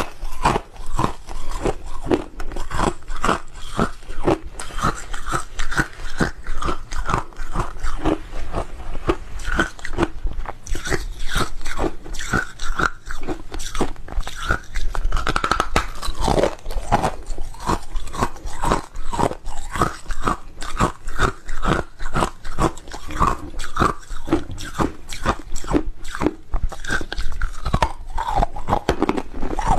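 Hard ice chunks bitten and crunched between the teeth, picked up close by a clip-on microphone: a dense, unbroken run of sharp crunches, several a second.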